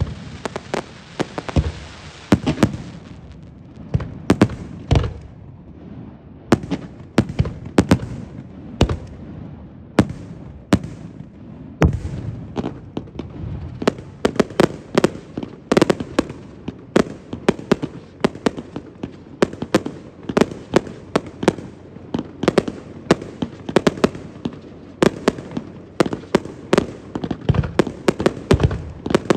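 Aerial firework shells bursting one after another in a stream of sharp bangs, growing into a near-continuous barrage of several bangs a second in the second half.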